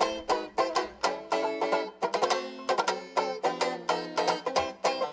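Banjo strumming chords alone in a steady jazz rhythm, about four strums a second, opening a Dixieland tune.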